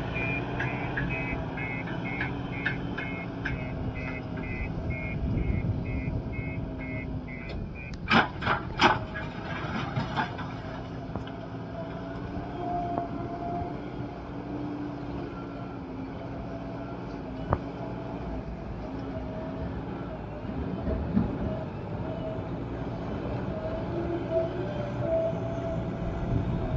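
JCB Xpert backhoe loader's diesel engine running steadily under load while the machine works soil with its front bucket. For the first several seconds its reversing alarm beeps about twice a second, and about eight seconds in there are three loud sharp knocks.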